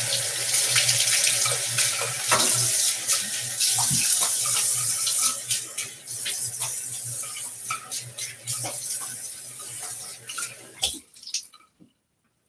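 Bathroom tap running into a sink while water is splashed over the face to rinse off shaving lather, with a steady low hum under the hiss of the water. The flow eases a little about halfway through and the tap is shut off near the end.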